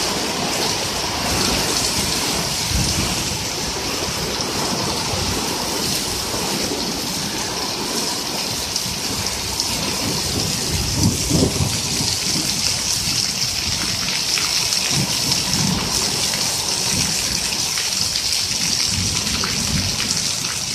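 Heavy downpour: a steady hiss of rain falling on a lawn, pavement and a patio roof, with water streaming off the roof edge. A low rumble swells about halfway through.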